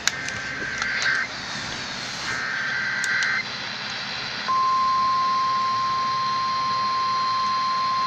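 Emergency Alert System test received on a Midland weather radio, heard through its small speaker. It plays the last two of three raspy, warbling bursts of digital header data, each about a second long. About four and a half seconds in, a steady single-pitch alert tone starts and holds.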